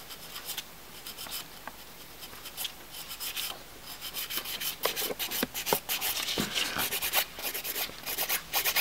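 Hand nail file rasping over a gel-coated fingernail: faint strokes at first, then quicker, louder back-and-forth strokes from about four seconds in, as the gel edge at the cuticle is filed down flush.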